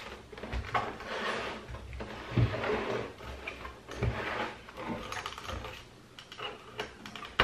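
Plastic rear casing of a Philips 243V5LHAB LCD monitor being shifted and turned on a wooden desk: sliding, scraping handling noise with a few knocks, the loudest about two and a half seconds in and again about four seconds in.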